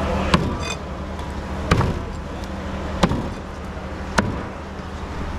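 A knife chopping fish on a cutting board: four separate heavy strikes, about one every second and a bit, over a steady low hum.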